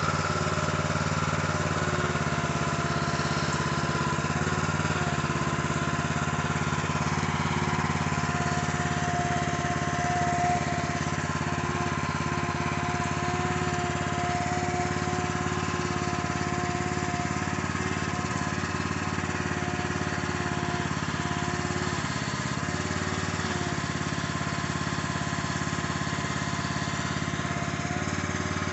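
The small gasoline engine of a Harbor Freight trencher/backhoe running steadily at constant speed, driving the hydraulics, with a steady whine over it and a brief pitch dip about two-thirds of the way through as the hydraulics are worked. The backhoe is being cycled to purge air from its newly filled hydraulic lines.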